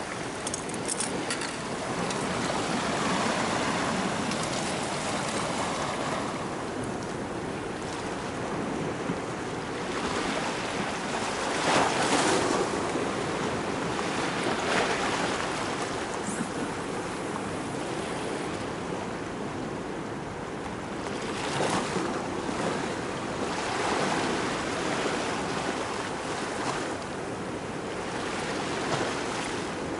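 Sea waves washing against a concrete harbour quay: a steady rushing noise that swells and eases every few seconds, strongest about twelve seconds in.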